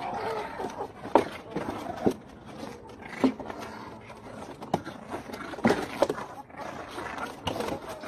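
Two puppies play-fighting in a shallow plastic crate: scuffling and scraping, with a string of sharp knocks of paws and bodies against the plastic. A few short puppy whines come near the start.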